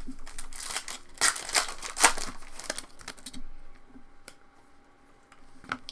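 Rustling, crinkling and light clicks of trading cards and their packaging being handled, busiest over the first three seconds and then dying down to near quiet.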